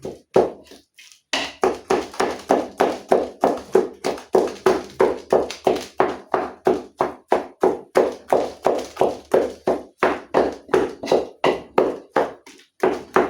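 Mukimo being mashed in a cooking pot: a steady run of dull thuds, about three a second, after a short pause near the start.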